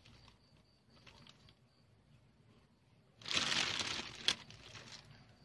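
Brief rustling and crinkling starting about three seconds in and lasting about a second and a half, ending with one sharp click.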